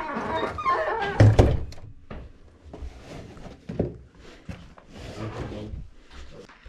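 An apartment entrance door shutting with a heavy thunk about a second in, followed by scattered small knocks and rustling as people move through the hallway.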